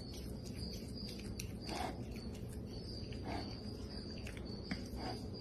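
A porcupine biting and chewing leaves off a green stem: soft crunches about every second and a half, over a faint, steady, high trill.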